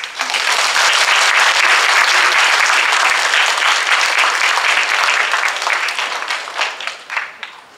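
Audience applauding: it starts suddenly and is dense for several seconds, then thins to a few scattered claps and dies away near the end.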